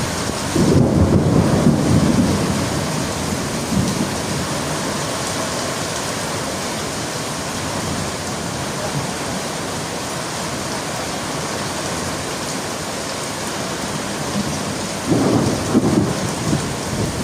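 Thunderstorm: steady heavy rain falling, with a rumble of thunder about a second in and another near the end.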